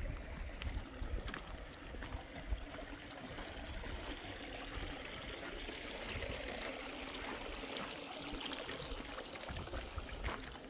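Water running and trickling steadily, with a few faint clicks.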